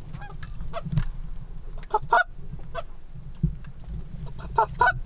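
Canada geese honking in short repeated calls as a flock flies over, with the loudest clusters of honks about two seconds in and near the end.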